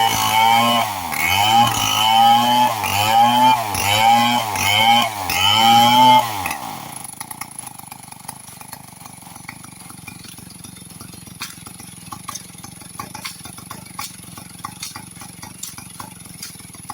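Chainsaw engine revving in repeated surges, its pitch rising and dipping about once a second, then shutting off after about six and a half seconds. After that only faint scattered clicks and ticks remain.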